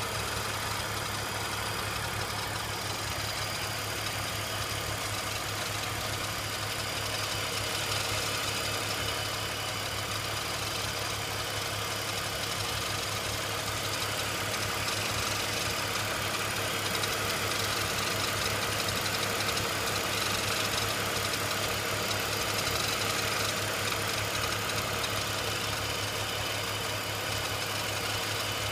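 BMW E46 330Ci's 3.0-litre inline-six idling steadily, with the weird noise that comes from the front of the engine running through it.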